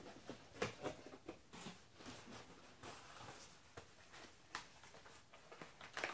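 Cardboard boxes being handled: a small box scraped out of a larger shipping box and turned over, with faint rustles and scattered light taps and scuffs.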